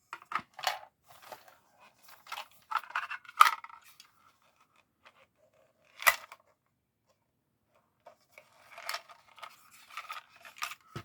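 Small hard-plastic clicks, taps and rattles of a Micro Machines R2-D2 toy playset being handled while its pieces are fitted inside and it is folded shut, with a sharper click about six seconds in.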